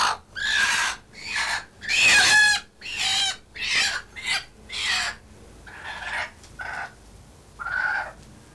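A hen squawking and clucking while it is handed over and held, in a run of about ten loud calls. The loudest comes about two seconds in, and the calls grow fewer and quieter toward the end.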